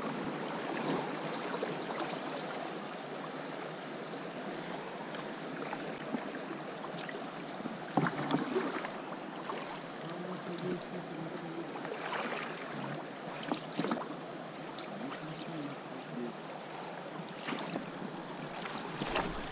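Shallow river riffle rushing and burbling around an inflatable PVC boat drifting downstream, with a handful of sharper splashes or knocks, the loudest about eight seconds in.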